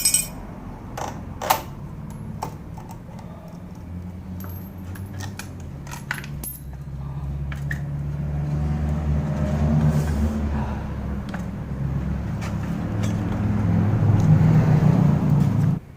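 Several sharp metallic clinks and jangles, like keys or small metal parts, followed by a motorcycle engine running at a low idle that grows steadily louder and then stops suddenly near the end.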